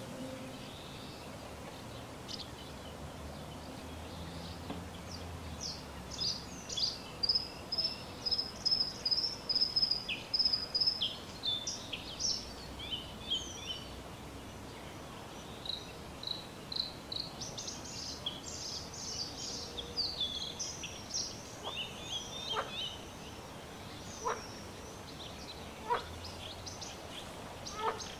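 Small birds chirping and singing over a steady outdoor hiss, with a quick run of repeated high notes about six seconds in and more scattered chirps later. A few short soft clicks near the end.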